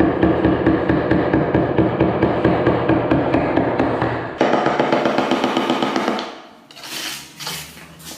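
Rubber mallet tapping rapidly and repeatedly on a large porcelain floor tile, bedding it down into dry-pack mortar. The tapping stops about six seconds in, followed by a couple of short hissing swishes.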